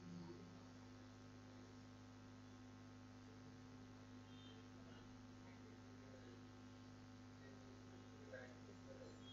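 Near silence with a steady electrical mains hum, and a few faint small sounds.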